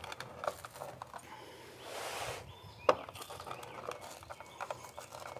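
Pizza wheel cutter rolling through a charred, crisp pizza crust on a wooden board: a crackling crunch about two seconds in, a sharp click a moment later, and small scattered crackles.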